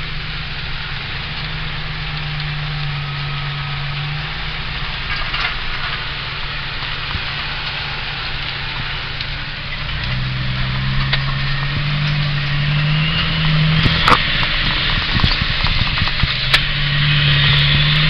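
Loaded log truck's diesel engine running steadily, heard from inside the cab on a rough gravel road; the engine note gets louder and slightly higher about ten seconds in. Several sharp knocks and rattles from the truck going over bumps come near the end.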